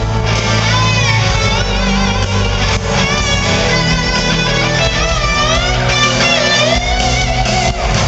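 Live rock music in an arena: a lead electric guitar solo with bent and wavering notes over the band's sustained accompaniment.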